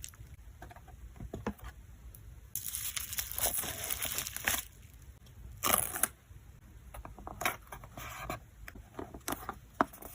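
Plastic sleeves and packaging crinkling and rustling as photocards are packed by hand: a longer rustle a few seconds in, a sharper crackle near the middle, and scattered small taps and clicks.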